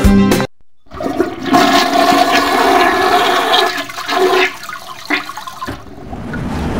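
Rushing water, like a flush, for about four and a half seconds after a song cuts off, giving way near the end to the steady road noise inside a moving car.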